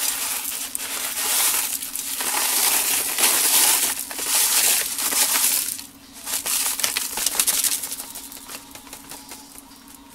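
Dry Stove Top stuffing crumbs poured from the bag into a crock pot, hissing and rattling onto the chicken in several swells. Over the second half the pour thins to scattered ticks as the last crumbs are shaken out.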